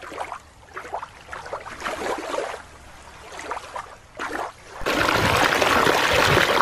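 A shallow rocky creek rushing steadily, cutting in suddenly about five seconds in. Before it comes a quieter stretch of scattered, irregular sounds from the orca show clip.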